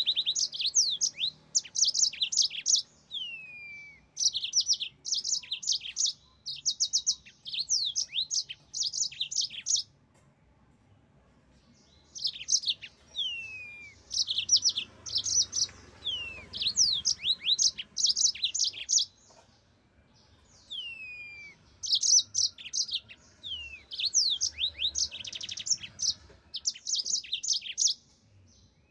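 Yellow-fronted canary singing a lively song: bursts of rapid, high trills broken by downward-sliding whistled notes. There are short pauses of a second or two between song phrases.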